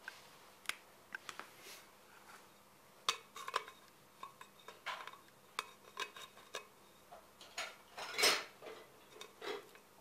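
Handling clatter: light clicks, taps and short scrapes of a clear plastic sheet and a marker against a terracotta clay pot, with a longer, louder scrape a little after eight seconds in.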